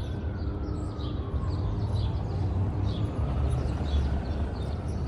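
Small birds chirping in short, scattered calls over a steady low rumble of city traffic, with a faint tone slowly rising and falling in the background.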